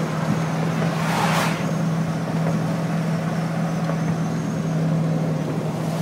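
Truck cruising on the freeway, heard from inside the cab: a steady engine drone with road noise, and a brief rushing swell about a second in.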